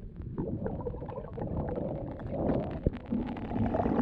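Muffled underwater audio picked up by a diving camera: a low rumble with many small clicks throughout, and one sharp knock about three seconds in.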